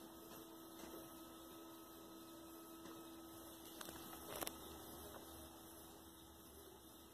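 Faint steady hum, one low tone held throughout, with a few short clicks about four seconds in.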